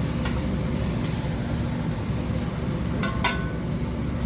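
Hibachi griddle sizzling over a steady low rumble, with two quick metallic clinks about three seconds in.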